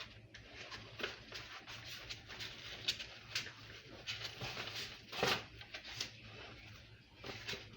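Scattered light clicks and rustles of new pull-out kitchen faucet parts being handled, with one louder click about five seconds in.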